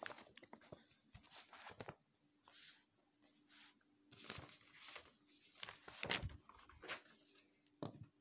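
Sheets of paper being handled and shifted on a cloth-covered table: soft, irregular rustling with a few sharper paper snaps, the sharpest near the end.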